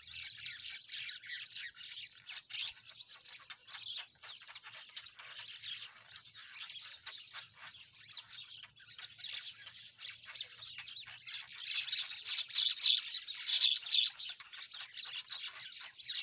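Many small birds chirping and twittering in a dense, continuous chorus, loudest toward the end.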